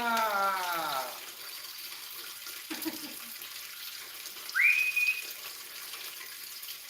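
A drawn-out voice note sliding down in pitch trails off about a second in; about four and a half seconds in comes one short whistle that rises and then holds, over a steady hiss like running water.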